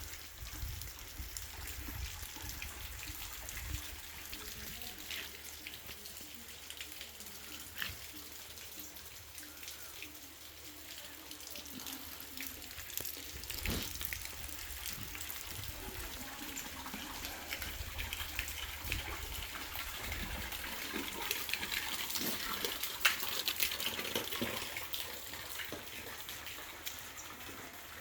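Steady rain pattering with water dripping and trickling; the patter grows louder about three-quarters of the way in.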